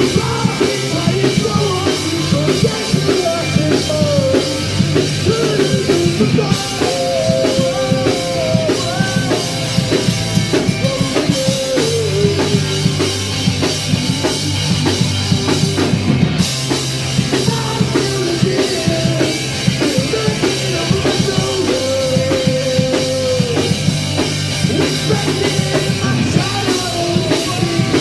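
Punk rock band playing live and loud: drum kit, electric guitars and bass guitar, with a singer's voice over the top.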